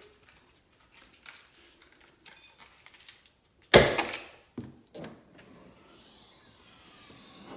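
Trunk lid of a 1999–2004 Mustang Cobra: one sharp clunk just under four seconds in, then two lighter knocks, among faint handling clicks.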